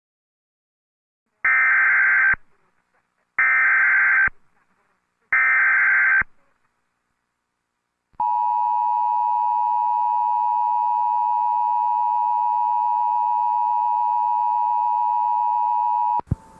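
Emergency Alert System tones: three short bursts of the SAME digital data header, each about a second long and two seconds apart, a few seconds in. Then the two-tone EAS attention signal holds steady for about eight seconds and ends with a brief click near the end.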